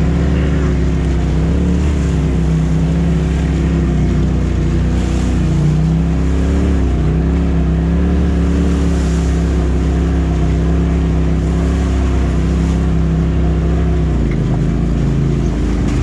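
Polaris RZR side-by-side's engine running at a steady low throttle, heard from the cab, with the pitch dipping briefly twice as the throttle eases off.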